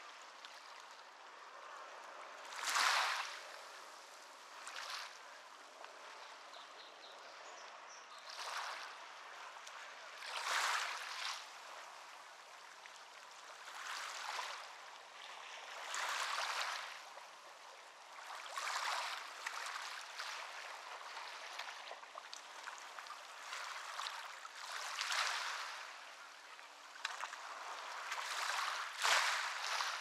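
Small waves washing onto a shore, each one a short rushing splash about every two to three seconds over a steady background wash of water.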